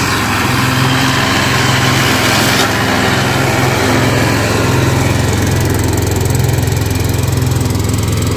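Husqvarna ride-on lawn mower running steadily with a low engine drone as it cuts tall grass, passing close and then moving away.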